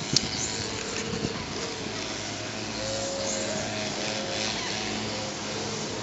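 A steady low motor hum over a constant outdoor background hiss, with one sharp click just after the start.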